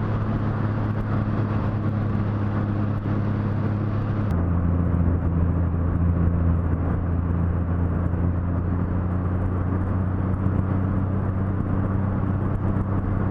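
Honda GL1500C Valkyrie's flat-six engine running steadily at cruising speed on the open road. About four seconds in, the engine note shifts slightly and the sound turns duller.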